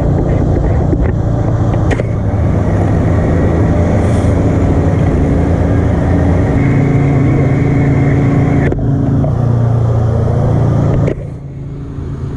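An engine running loudly and steadily, its low hum shifting pitch a few times, then dropping off abruptly about eleven seconds in.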